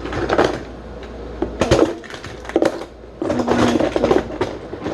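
Small objects being handled and moved on a tabletop: irregular clicks, clatters and rustles, with a busier stretch of knocking and scraping past the middle.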